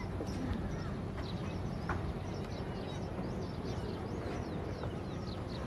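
Many small birds chirping in quick, scattered calls over a steady low rumble.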